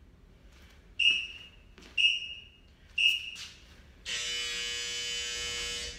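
Workout interval timer beeping: three short high countdown beeps a second apart, then one long buzzer tone of about two seconds marking the switch to the next Tabata interval.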